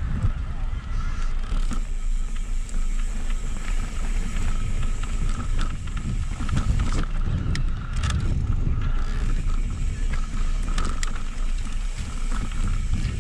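Mountain bike rolling down a dirt trail: wind buffeting the bike-mounted microphone and tyres rumbling on dirt, with scattered clicks and rattles from the bike.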